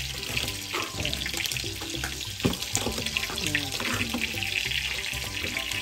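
Kitchen knife cutting through green beans onto a plastic cutting board, a string of quick cuts and taps. A steady sizzling hiss runs underneath from fish frying in a pan.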